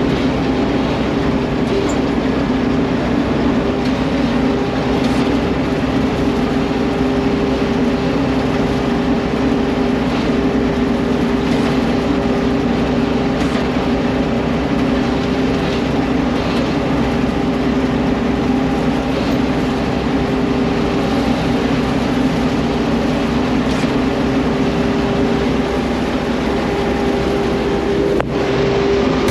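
John Deere combine harvester running steadily with its threshing gear engaged, a constant mechanical drone with a steady hum.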